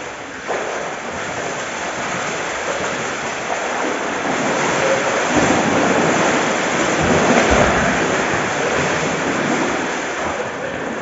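Swimmers splashing water in a swimming pool: a continuous rush of splashing that grows louder from about five seconds in, peaks around seven to eight seconds, then eases off.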